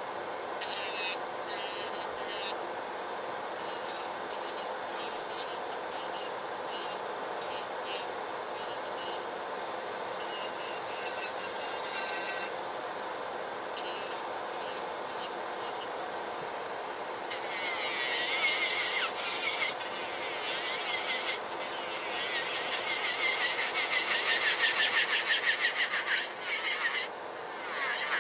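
Electric nail drill with a sanding bit filing artificial nails, over the steady whir of a Makartt nail dust collector's fan. The grinding of the bit on the nail gets louder and rougher in the last third.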